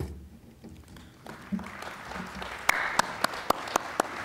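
Audience applauding, building up about a second in, with a handful of sharp, louder cracks near the end.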